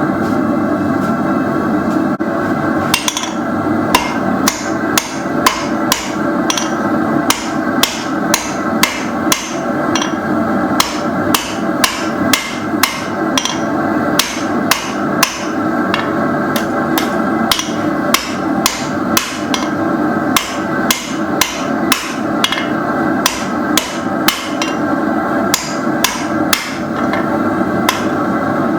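Hand hammer striking hot 3/8-inch round steel bar stock on an anvil, squaring it up, in a steady rhythm of a little under two blows a second that starts about three seconds in. A steady hum of running equipment goes on underneath.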